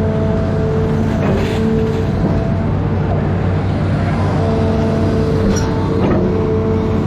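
Amphibious excavator's diesel engine running steadily under load, with a higher whine that comes and goes and two brief sharp knocks, about a second and a half in and near the end.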